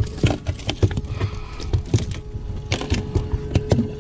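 Irregular knocks and taps on a fiberglass boat deck as a freshly landed jack flops about and is grabbed by hand.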